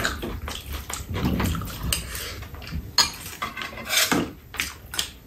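Metal spoons and chopsticks clinking and scraping against ceramic bowls on a metal tray as two people eat, with several sharp clinks among softer scraping.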